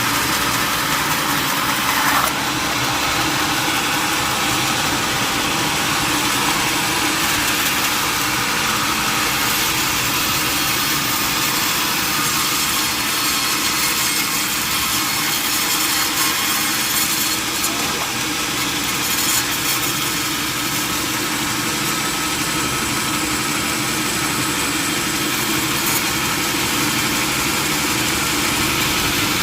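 Sawmill machinery running steadily: an engine hum with a dense, even hiss over it.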